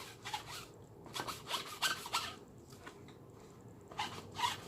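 Lint roller rolled in quick strokes over the fabric of a dusty cap, a rasping rub with each stroke. A few strokes come in the first two seconds, then a lull, then two more near the end.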